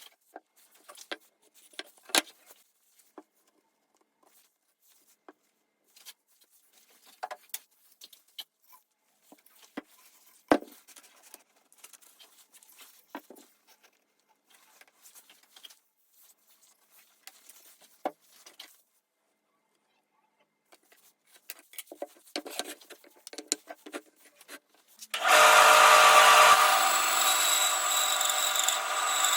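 Wood and tools being handled on a workbench: scattered sharp knocks, taps and light scraping at irregular intervals. Near the end a power tool starts suddenly and runs loudly and steadily.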